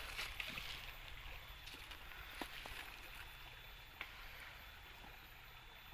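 Faint running water of a small stream, with a couple of sharp clicks from handling near the middle.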